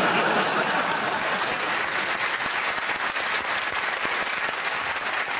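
Audience applauding: dense, steady clapping that tapers slightly near the end.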